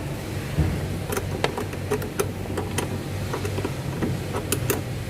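Engine running at a steady idle, a low even hum, with a dozen or so irregular sharp clicks over it.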